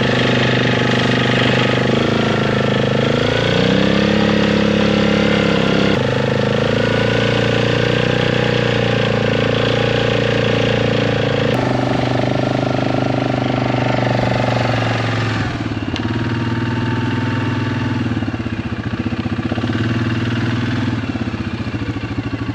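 ATV engine running while the quad bike is driven over sand. Its pitch glides up a few seconds in and then shifts to new steady levels several times as the throttle changes.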